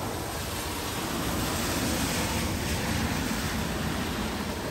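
Steady rain with a car driving past on the wet street, its tyres hissing on the wet road. The sound swells to a peak about halfway through, then eases off.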